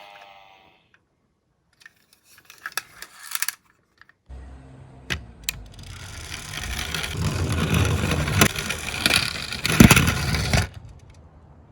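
Small die-cast Tomica minicar rolling down a long toy slope: a clattering rolling rumble that grows louder over several seconds, with clicks, a sharp knock near the end, then a sudden stop. A few light clicks and rattles come before it.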